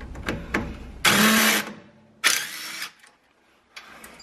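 Cordless power tool running in two short spurts, about a second in and again a second later, spinning a 13 mm nut off the sway bar bushing bracket bolt while a wrench holds the bolt head. A few metal clicks come before the first spurt.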